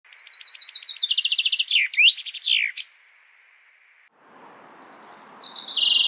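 Common chaffinch singing: two songs, each a rapid series of repeated notes stepping down in pitch, the first ending in a flourish of a few sweeping notes. After a pause of about a second, the second song comes in over a steady background hiss.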